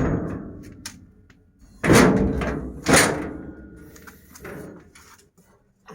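A door's spring-loaded lever latch being worked: two loud clanks about a second apart, each ringing off, then a few lighter knocks.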